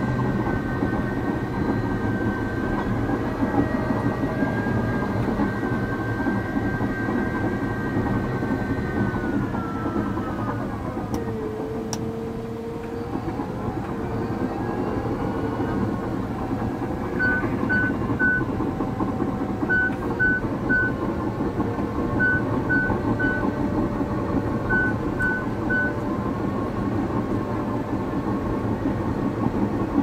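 Caterpillar D6 bulldozer working, heard from the cab: the diesel engine runs steadily under a clattering track undercarriage, and a whine in the machine noise drops in pitch about ten seconds in. Later an alarm beeper sounds three short beeps at a time, four times, about every two and a half seconds.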